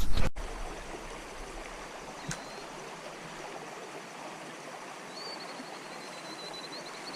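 Trout stream flowing: a steady rush of water over riffles. A brief loud sound at the very start cuts off abruptly, and a faint high warbling trill comes in about five seconds in.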